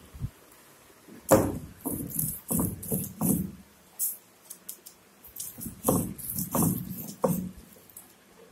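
A stone roller pushed back and forth over a flat stone grinding slab, grinding a coarse masala paste by hand. It makes a run of rough scraping strokes, a short pause about four seconds in, then a second run.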